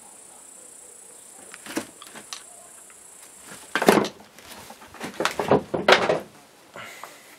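Knocks and scrapes of things being handled and shifted: a few light knocks about two seconds in, a louder clatter about four seconds in, then a quick run of knocks and scrapes between five and six seconds.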